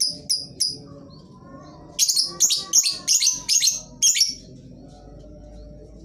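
Lovebird calling in rapid series of shrill, sharp chirps, about four or five a second. One series trails off within the first second, and a second, louder series starts about two seconds in and lasts around two seconds. Fainter, lower calls sound in the background between them.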